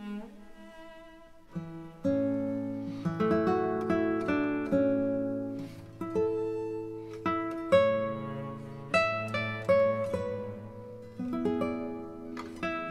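Background music: a plucked acoustic guitar melody, which grows fuller with lower notes about two seconds in.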